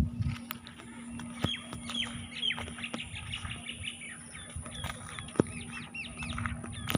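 Birds chirping in a quick run of short, downward-sweeping chirps. Underneath is a low steady hum, with a few sharp clicks, the loudest about five and a half seconds in.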